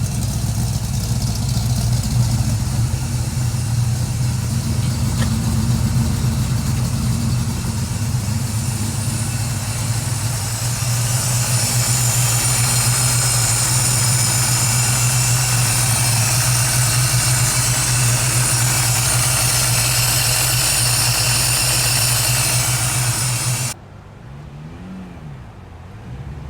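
Car engine running at a steady idle, loud and even with no revs. It cuts off abruptly near the end, leaving a much quieter background with a brief low tone that rises and falls.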